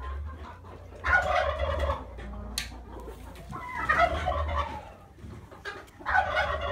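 Barnyard poultry calling: three loud, rough calls of about a second each, spaced about two and a half seconds apart, over a low rumble.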